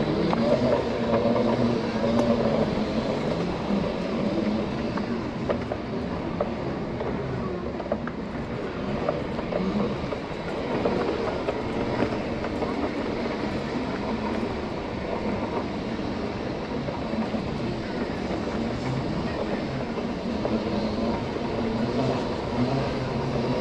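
Off-road Segway rolling along a dirt forest path: its big knobbly tyres run over the ground and the hum of its electric drive motors drifts up and down with speed.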